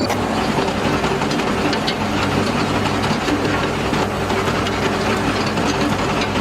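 An engine running steadily with an even low hum that holds at one speed.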